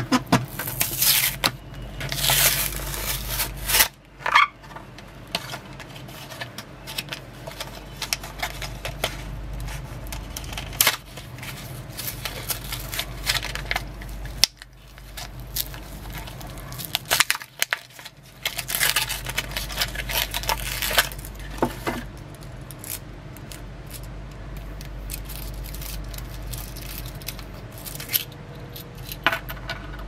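Plastic and card retail packaging of a Zippo fuel canister crinkling and tearing as it is pulled open by hand, in irregular bursts of crackle and rustle with quieter pauses between. A few light clicks near the end.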